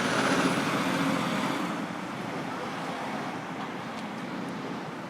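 City street traffic noise: a louder swell of passing traffic in the first couple of seconds, easing to a steady hum.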